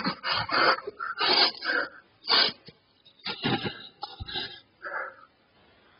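An elderly man sobbing, choked up: a run of short, breathy gasps and sniffs with brief pauses between them.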